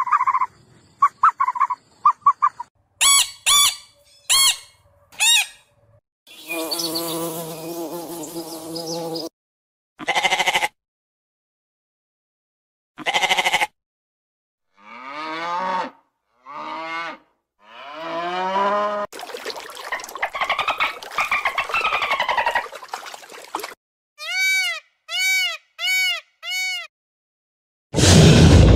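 A string of short animal-call clips, one after another with silent gaps between them. About halfway through, goats bleat three times, each bleat falling in pitch. Near the end come five identical quick chirps, and then a loud dinosaur roar begins.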